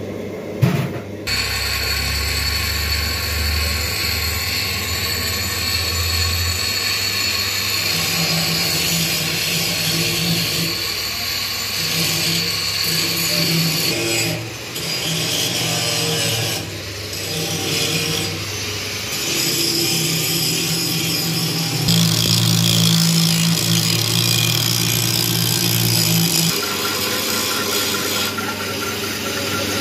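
Metal lathe running with its electric motor humming, over steady high mechanical hiss. A sharp knock comes about a second in.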